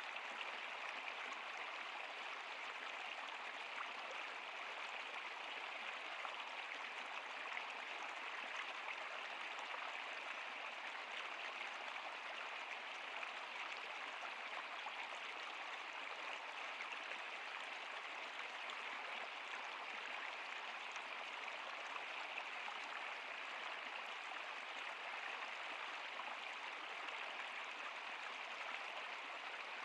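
Shallow stream flowing over rocks: a steady, even rush of babbling water.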